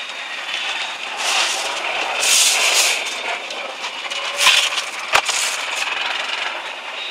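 Busy roadside traffic noise: the hiss of passing vehicles rising and falling in several swells, with one sharp click about five seconds in.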